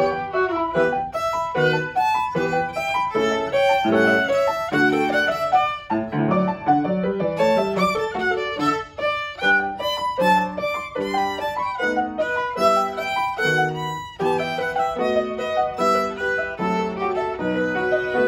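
Violin playing a hornpipe in quick, separate notes, accompanied by a grand piano.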